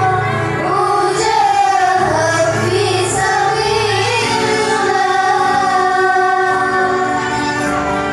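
Music with a woman's singing voice, a steady song with held accompanying chords.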